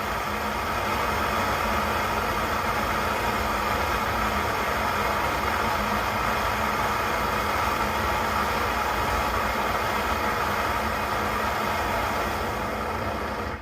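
Coleman 530 G.I. pocket stove's pressurized burner running at full flame with a steady rushing roar. The flame is wide open and will not turn down.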